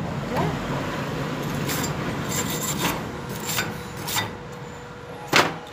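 Wire brush scrubbing slag off a fresh 6013 stick-weld bead on steel: a steady rasping, broken by several short sharp knocks, the loudest near the end.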